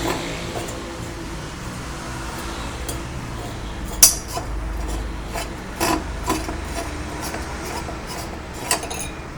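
Electric glass-bottle cutting machine running with a steady low hum, with scraping and several sharp clicks, the loudest about four seconds in.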